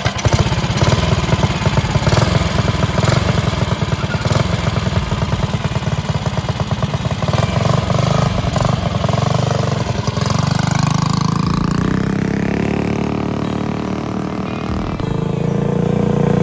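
Tillotson 212 single-cylinder engine with a super pipe exhaust on a TrailMaster Hurricane 200X minibike, just pull-started and running with a rapid, even firing beat, on test after a carburetor needle adjustment. About ten seconds in the revs climb as the bike pulls away, and near the end a steadier, higher engine note is heard as it rides back.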